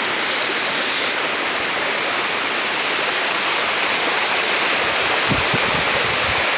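Steady rush of a waterfall's heavy flow of cascading water. From about five seconds in, low rumbles come in over it, like wind buffeting the microphone.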